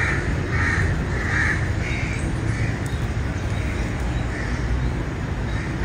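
A bird calling with a run of short, harsh caws, four or five of them about two-thirds of a second apart in the first three seconds, over a steady low background rumble.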